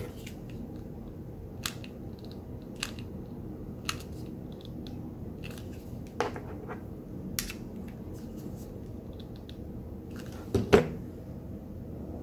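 Scattered light clicks and taps from handling a mini hot glue gun while gluing wool pompoms together, with a louder double knock about ten and a half seconds in, as the gun goes back down on the tabletop. A steady low hum underneath.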